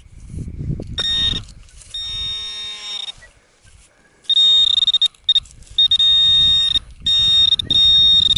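Minelab Equinox 800 metal detector sounding its target tone: a series of separate wavering beeps, the loudest from about four seconds in, each lasting around a second, as the coil is swept back and forth over a target reading 14–15.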